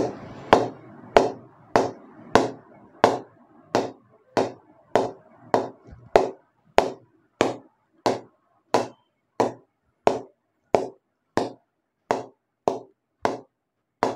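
A red leather cricket ball is bounced again and again on the face of an SF English willow cricket bat. There are about 22 even knocks, roughly three every two seconds, each with a brief ring. This is the ping test of the bat's response.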